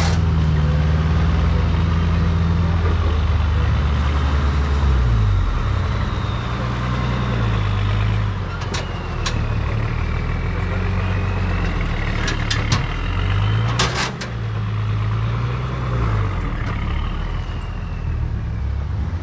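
Modified Nissan Patrol ute's engine pulling at low speed up a rocky climb, its revs dropping a few seconds in and rising and falling again later, with a thin whine above the engine. Several sharp knocks and clicks come through, a pair near the middle and a cluster a little later.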